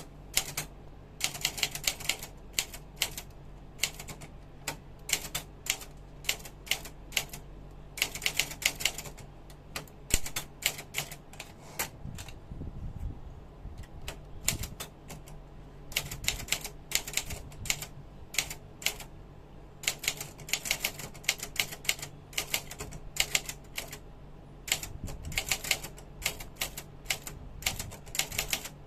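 Brother Deluxe 550TR typewriter being typed on: sharp keystrikes in quick runs of several strokes, broken by short pauses, with a few heavier, lower thuds in a sparser stretch about halfway through.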